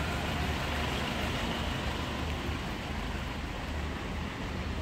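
Steady traffic noise from a wet city street, tyres hissing on wet asphalt, over a low rumble.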